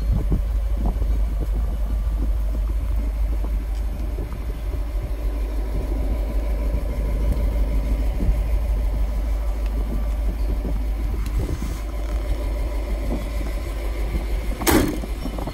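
1940 Ford pickup's 221ci flathead V8 idling steadily, with a single sharp knock near the end.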